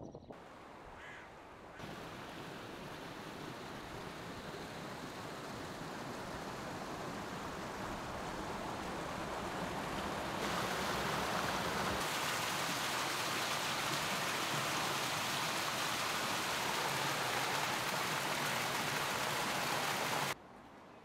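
Steady rushing water, a dense hiss with no tone in it, growing louder and changing abruptly a couple of times before it cuts off suddenly shortly before the end.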